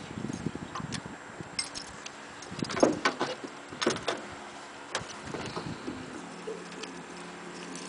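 Light metallic clinks and knocks from fishing tackle being handled in an aluminum boat. There are scattered sharp clicks, the loudest just under three seconds in.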